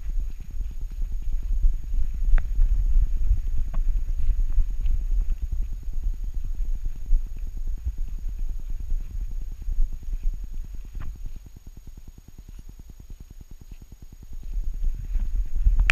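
Low rumbling, rubbing and bumping from a GoPro strapped to a walking Saarloos wolfdog's back, as her steps and fur jostle the camera mount, with a few sharp clicks. It quietens for a few seconds about three-quarters of the way through, then picks up again.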